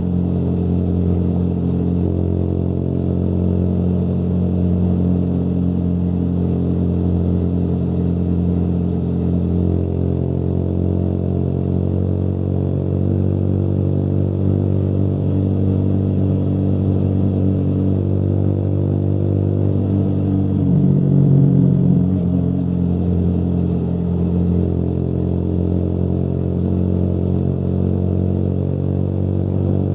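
Motorcycle engine running steadily while riding, with a brief louder change in engine speed about two-thirds of the way through.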